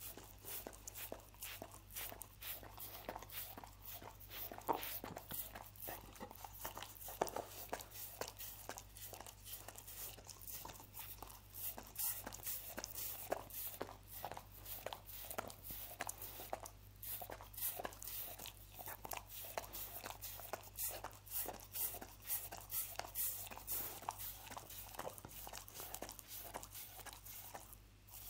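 Dog licking sticky honey off a wooden cutting board: a continuous run of wet tongue laps and smacks, several a second.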